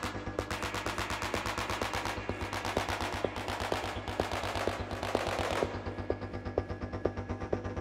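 Electronic music with a rapid, even pulse of short clicking hits over a steady low drone.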